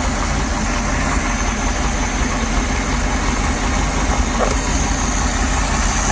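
Mercruiser inboard engine idling steadily on its freshly rebuilt Quadrajet four-barrel carburetor, fitted with a new float, running smoothly with no flooding.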